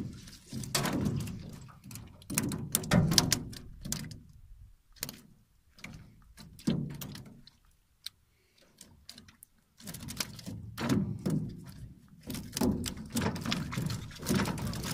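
Irregular knocks, clatter and rustling from a wire-mesh fish trap being lifted and handled in a boat, with a few seconds of near quiet in the middle.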